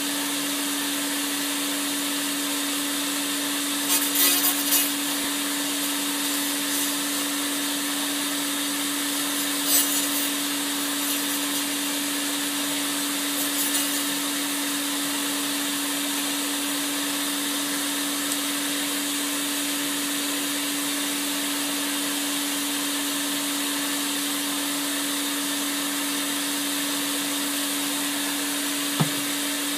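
Portable hand-held laser cleaner running with a steady hum and hiss while it strips the oxide layer from an old English penny. Three short bursts of crackling come in the first half, and there is a single click near the end.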